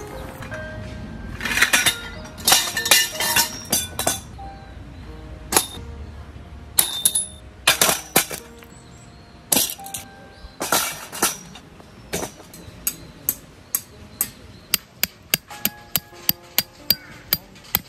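Sharp knocks and clinks over soft background music. They come in scattered clusters at first, then turn into a quick, regular run of taps, about three a second, near the end.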